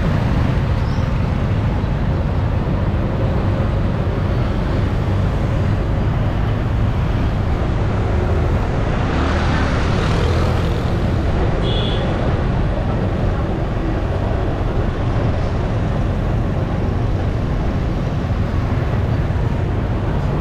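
Steady street traffic rumble of passing vehicles. One vehicle passes closer and louder about nine to eleven seconds in, and there is a short high beep about twelve seconds in.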